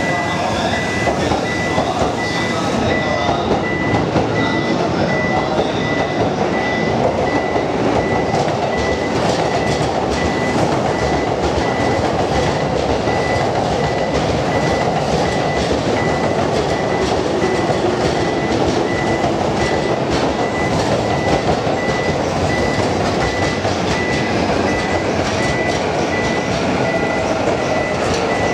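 JR East E531 series electric commuter train running past alongside the platform: a steady rumble of wheels on rail with faint, regular clicking over the rail joints. A steady high beeping sounds over it.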